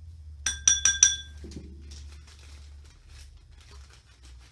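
Four quick ringing clinks of a measuring spoon tapped against a container rim to knock off the last glitter, then faint rustling of the glitter.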